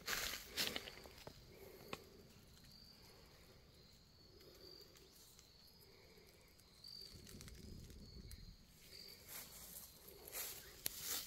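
Footsteps crunching through dry leaf litter on a forest floor, in the first second and again near the end, with a quieter stretch between where faint, short, high insect chirps repeat.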